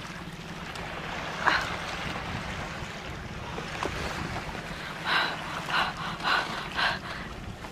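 Sea water slapping against the hull of a small boat, a splash about a second and a half in and four quick splashes near the end, over wind on the microphone and a low steady hum.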